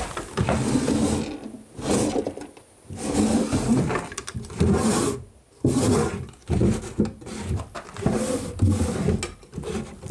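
Drawers of an old chest of drawers being pulled open and pushed shut over and over, scraping and rumbling in their worn runners, about eight strokes.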